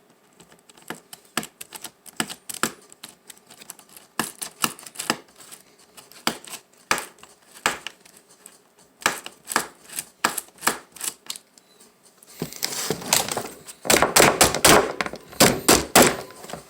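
A laptop being taken apart by hand: a long series of sharp plastic clicks and taps, then a denser clatter of rattling and scraping near the end as parts are worked loose.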